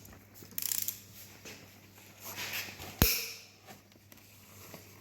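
Ratchet wrench being worked in short bursts of fast clicking while a bolt is tightened a further 90 degrees, with one sharp metallic knock about three seconds in.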